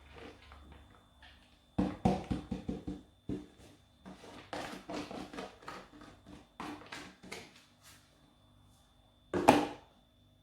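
Spoon and kitchenware knocking and scraping against a cooking pot as sliced okra goes in: clusters of quick clatters starting about two seconds in, with one loudest sharp knock near the end.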